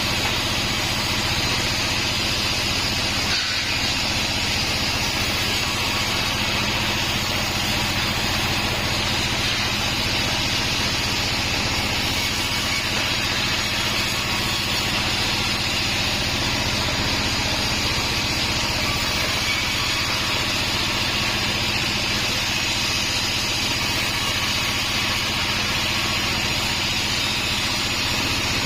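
Band sawmill (a Bandsaw36 machine) running steadily, its blade sawing through mahogany, with a constant low hum under an even hiss.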